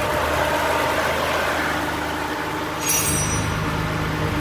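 Car engine idling steadily, a low even drone; about three seconds in there is a brief high hiss and the low rumble grows stronger.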